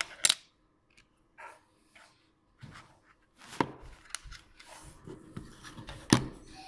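Plastic Lego pieces clicking and knocking on a tabletop as they are handled and set down: a string of sharp clicks, the loudest right at the start, about halfway and near the end, with soft rubbing between.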